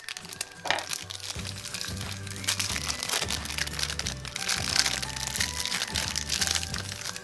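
Clear plastic bag crinkling and crackling as hands open it and pull out a small plastic part, thickest in the middle, over background music with a bass line.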